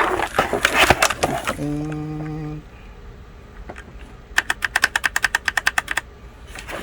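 Keyboard being handled with clattery knocks, then a rapid run of about fifteen even clicks over a second and a half, like the keys of a mechanical keyboard with brown switches clacking. A brief steady hum sounds in between.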